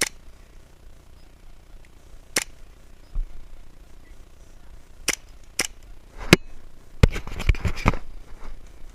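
Airsoft guns firing: sharp single shots a second or few apart, then a quick string of about half a dozen shots about seven seconds in.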